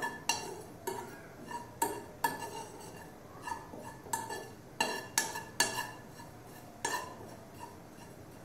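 A metal spoon stirring cumin seeds as they dry-roast in a non-stick frying pan. It knocks and scrapes against the pan in irregular clinks, roughly one or two a second, each ringing briefly.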